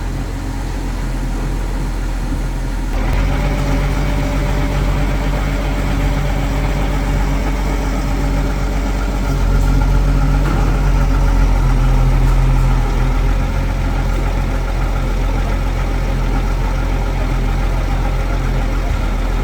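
Truck engine running at idle, a steady low hum. It gets a little louder about three seconds in and again for a few seconds midway.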